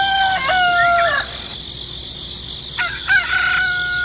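A rooster crowing twice: the first crow is already underway and ends about a second in, the second starts about three seconds in.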